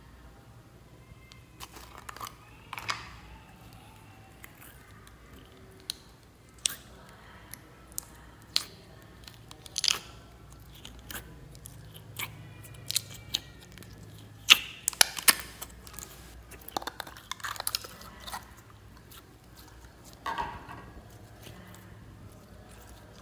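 Clear slime being pulled out of a plastic jar and stretched by hand, giving irregular sticky pops, clicks and squelches, with a busier run of louder pops around the middle.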